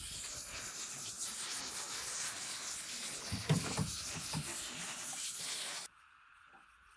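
Steady hiss of rain falling, with a few dull knocks about three and a half seconds in; the hiss cuts off abruptly near the end.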